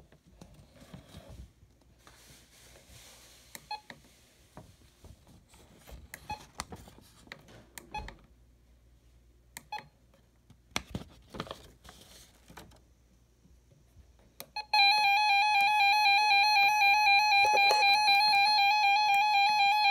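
RadioShack 12-262 weather alert radio sounding its alert: a loud, shrill, warbling beep tone that starts about fifteen seconds in and holds steady. Before it there are only faint clicks and handling sounds from the radio and its paper manual.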